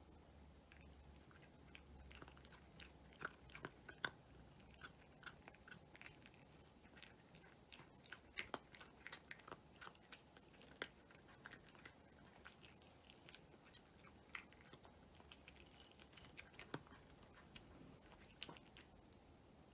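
Cat chewing dry kibble: quiet, irregular crunches at an uneven pace, with a few sharper, louder bites among them.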